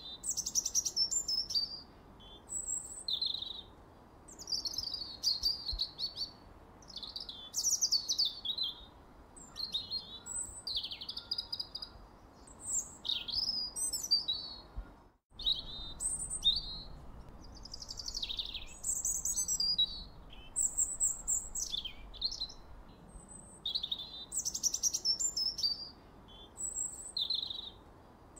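A songbird singing a long series of varied, high-pitched phrases with rapid trills and pitch glides, separated by short pauses, over a faint steady hiss. The sound drops out completely for an instant about halfway through.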